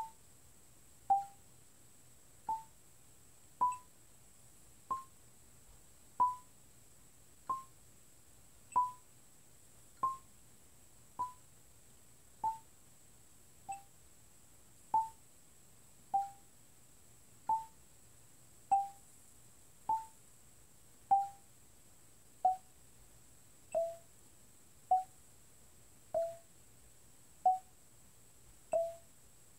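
Marimba bars struck one at a time with yarn mallets in dead strokes, each note damped short instead of ringing. The notes come slowly and evenly, about one every second and a quarter, stepping up and back down through a G major warm-up pattern.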